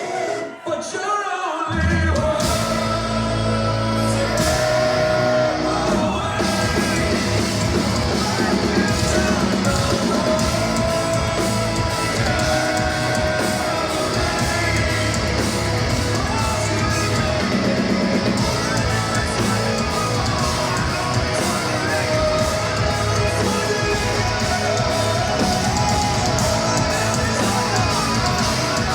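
Hard rock band playing live, with sung and shouted lead vocals over distorted electric guitars, bass and drums. The music thins out briefly about a second in, then the full band comes back in and keeps playing loud.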